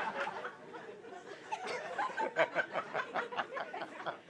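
Audience laughing, in many short broken bursts that grow thicker in the second half.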